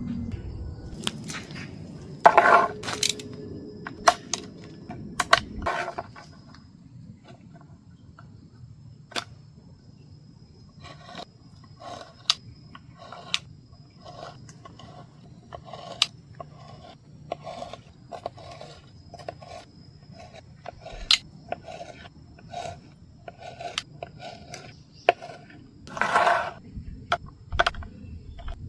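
Irregular clicks, knocks and scrapes, with a few louder clusters of knocking near the start and again near the end, as of objects being handled and worked by hand.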